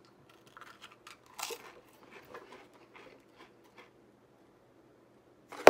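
Pringles potato crisps being bitten and chewed: a run of small, sharp crunches and crackles, then a pause, and a sudden loud snap with a brief rush of noise near the end.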